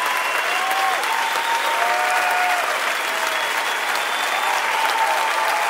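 Large theatre audience applauding, with drawn-out cheers that rise and fall above the clapping.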